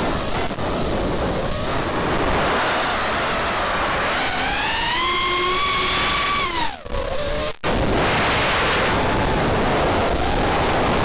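Racing quadcopter's brushless motors and propellers whining over heavy wind rush on the onboard camera's microphone. About four seconds in, the motor whine climbs in pitch as the motors speed up, holds, then drops away, with two short cuts in the sound just after.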